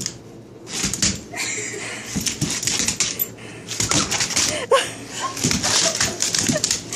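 Dog claws clicking and scrabbling on a hardwood floor as a chocolate Labrador puppy and a Pomeranian play, a rapid clatter that gets busier in the second half.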